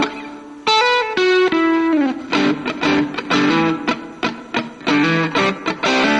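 Pro Martin Deluxe electric guitar played through a Marshall MG2FX practice amp. After a brief lull, a few single notes ring out, one sliding down in pitch about two seconds in, then rhythmic strummed chords follow.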